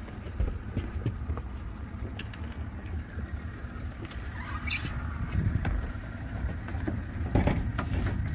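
A boat engine idling, a steady low rumble, with scattered light knocks and a louder clatter about seven seconds in.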